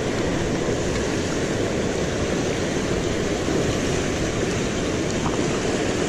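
Steady rush of fast river water running over rocks, an even noise that holds without a break.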